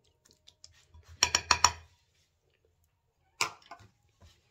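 A metal spoon clinking against a clay bowl: a quick run of about five taps a second in, then one more tap about two seconds later, with a few faint scrapes after it.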